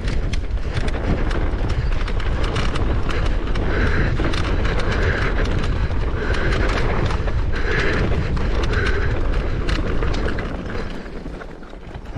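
Mountain bike riding down a rough trail: a steady rumble of tyres and rushing air, with frequent rattles and clicks from the bike over rocky ground. The rider breathes heavily, a breath about every second from around four seconds in. It gets quieter near the end.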